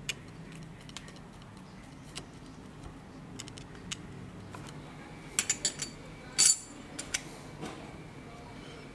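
Small metal parts and tools clicking and clinking as they are handled on a workbench. There are scattered light taps, then a quick cluster of sharp clinks about five and a half seconds in, with the loudest one just after.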